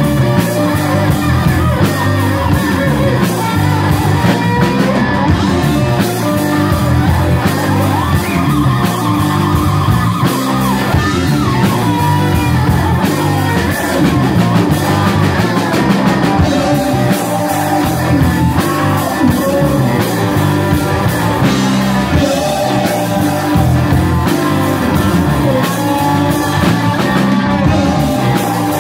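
Live rock band playing loudly and without a break: electric guitars over bass guitar and drums, with singing.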